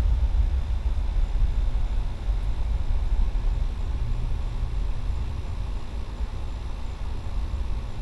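Distant SpaceX rocket launch rumbling: a low, grainy roar that fades slowly.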